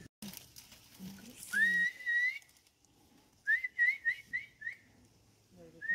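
A person whistling: a long whistle that rises and then holds, then a quick run of about five short rising whistles, then another long whistle near the end.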